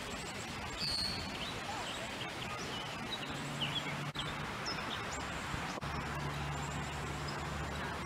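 Several songbirds chirping in short, high calls over steady background noise. A low, steady hum comes in about three seconds in and again near six seconds.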